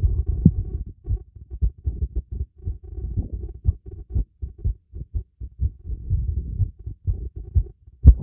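A person's heartbeat heard through a stethoscope: a quick, steady run of low thumps. A louder, sharper knock comes near the end.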